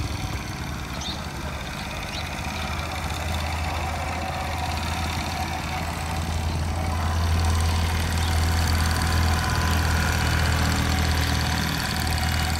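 An engine running steadily at idle, its low hum getting a little louder from about seven seconds in.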